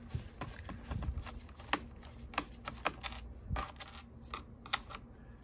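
Quick, irregular light clicks of a precision screwdriver turning out a small screw from the HP 15-dw0038wm laptop's metal bottom case.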